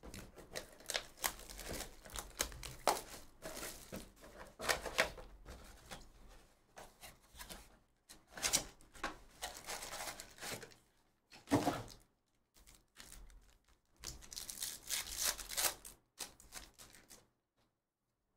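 Hands opening a Topps Chrome Logofractor cardboard box and pulling out the card packs: irregular bursts of cardboard rustling, tearing and wrapper crinkling, with a few light thunks.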